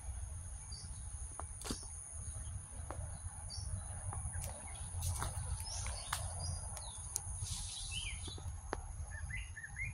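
Outdoor birdsong: birds chirping in short, scattered calls over a steady high insect drone, with a continuous low rumble and a few sharp clicks.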